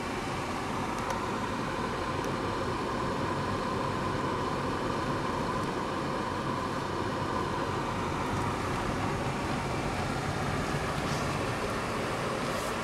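Steady engine and tyre road noise of a Citroën car driving at an even speed, heard from inside the cabin.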